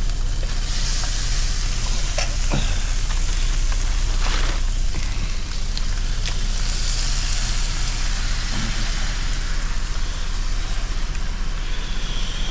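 Shrimp frying in a hot pan, a steady hiss of sizzling that swells twice, with a few light clicks from a utensil. A constant low hum runs underneath.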